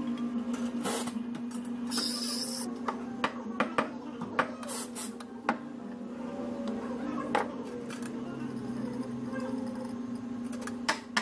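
Espresso-bar work: metal pitchers and glasses clink and knock over a steady espresso machine hum, with two short hisses from the machine about two and five seconds in.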